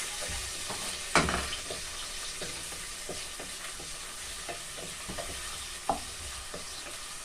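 Onions sizzling and frying in hot oil in a cooking pot, with a utensil clicking against the pot as they are stirred; a sharper knock about a second in.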